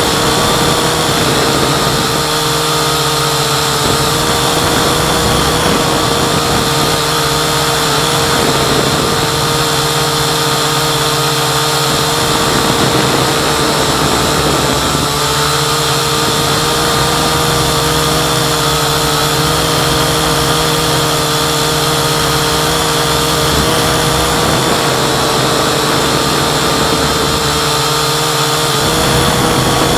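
Syma X8C quadcopter's four brushed motors and propellers whining steadily in flight, picked up by the camera riding on the drone, the pitch shifting slightly now and then as it manoeuvres.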